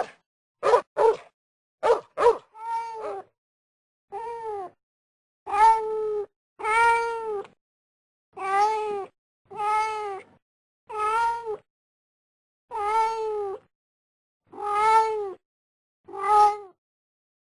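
A few short dog barks in the first two seconds, then a domestic cat meowing about ten times, each meow under a second and rising then falling in pitch, with short gaps between them.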